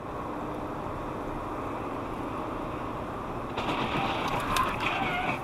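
Steady road and tyre noise inside a moving car, picked up by its dash cam. About two-thirds of the way in, a louder, brighter layer with a few wavering tones joins.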